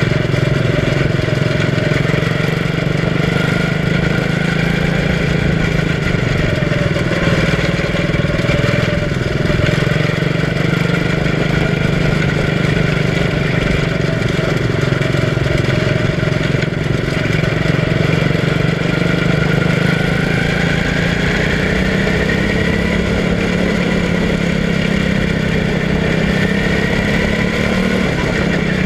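A quarter midget race car's small single-cylinder engine running steadily, heard from on board, its pitch creeping up about two-thirds of the way through and dropping near the end.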